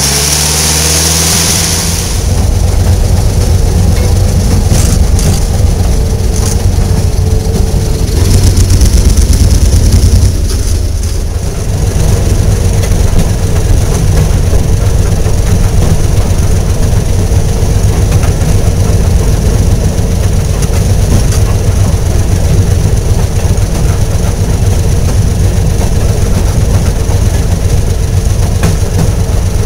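Railroad motorcar (track speeder) running along the rails: a steady, loud low rumble of its small engine and wheels on the track. For the first couple of seconds it is an engine idling instead, before the rumble takes over.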